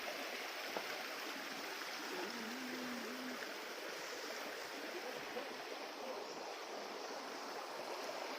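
Steady rush of flowing water from a forest stream and waterfall.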